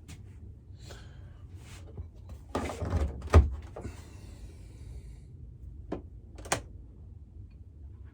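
Hands working soft clay into sausages on a hard work surface: rubbing and handling noises with a few knocks, the loudest a sharp knock about three and a half seconds in.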